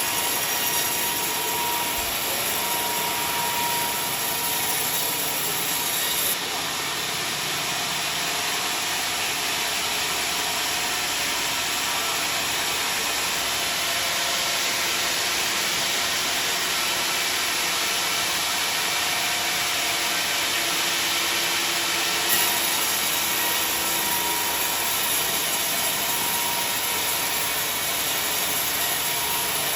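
Sawmill saw cutting through a large log, a steady, loud machine noise with the saw's motor running under it.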